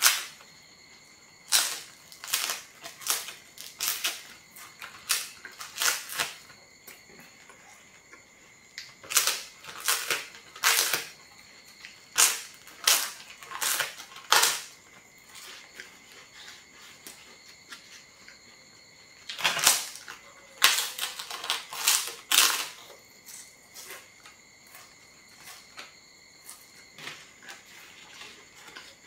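Thin, crisp flatbread crunching as it is bitten and broken: clusters of sharp, crackling snaps, with quieter stretches of softer chewing crunches between them.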